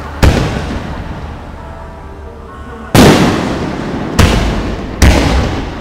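Aerial firework shells bursting: four loud booms, one about a quarter second in and three closer together in the second half, each trailing off in a long echo.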